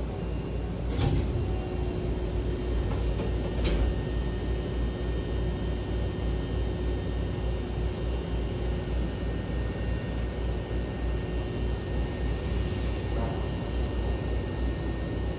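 A train's double sliding passenger door opening at a station stop, with a sharp clunk about a second in and a lighter knock a few seconds later. After that the stopped train hums and rumbles steadily.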